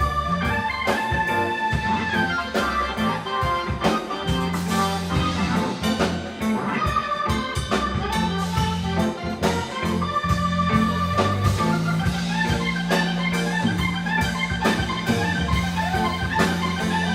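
Live reggae band playing an instrumental break: a keyboard solo over a steady bass line and drums.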